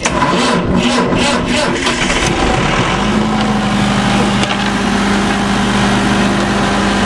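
Perkins diesel generator engine cranking over on its starter, catching about three seconds in and settling into a steady run.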